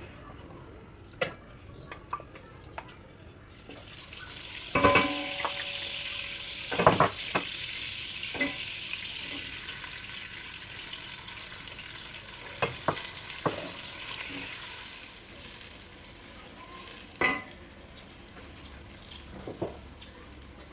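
Blended pepper sauce frying in hot oil in a pot: a sizzle that swells about four seconds in and eases off after about sixteen seconds, with a few knocks of the spoon against the pot as it is stirred.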